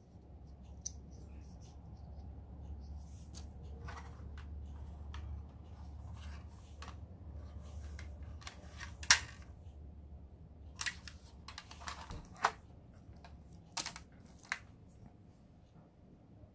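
Handling noise: scattered sharp clicks and rustles, the loudest about nine seconds in, over a low hum that stops about twelve seconds in.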